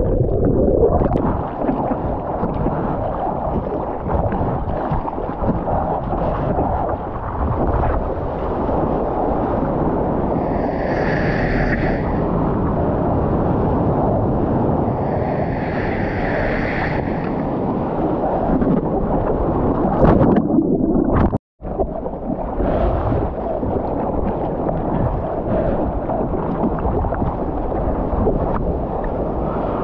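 Water rushing and splashing with wind buffeting the microphone of an action camera, as a foam surfboard rides across a wave. The sound drops out for a moment about two-thirds of the way in.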